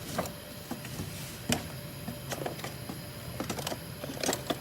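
Scattered light clicks and knocks of small parts and tools being handled during work on an embroidery machine head, over a steady low hum; the sharpest knocks come about a second and a half in and near the end.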